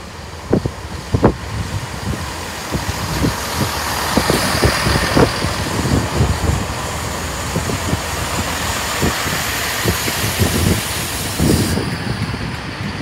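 A GWR Turbo diesel multiple unit passes close by at speed. Its underfloor diesel engines run with a rising rumble, and its wheels clack sharply over the rail joints in quick irregular runs.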